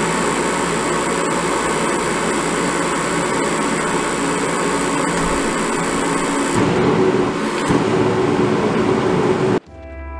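Propane forced-air heater running with a steady rush from its fan and burner. A high hiss drops out about two-thirds of the way in, and the heater's sound cuts off shortly before the end, when music begins.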